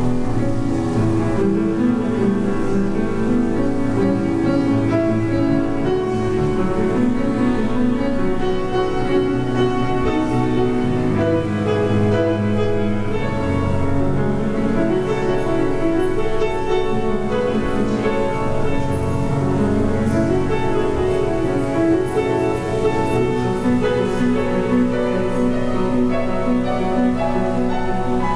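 Piano playing a slow instrumental piece with sustained chords and low bass notes.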